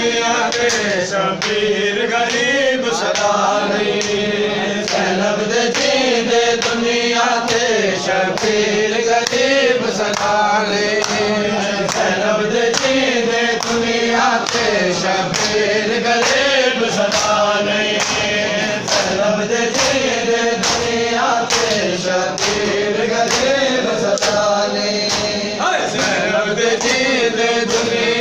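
A group of men chanting a noha, a Shia mourning lament, in unison, with a steady beat of open-hand chest slaps (matam) keeping time.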